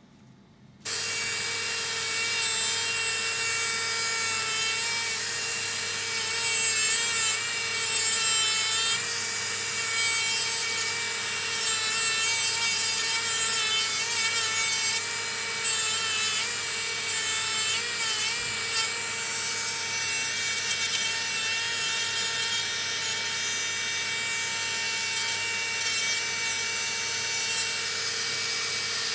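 Podiatry nail drill with a rotary burr grinding down a thick fungal toenail, thinning the nail. A steady high whine over a gritty hiss starts suddenly about a second in, its pitch wavering now and then.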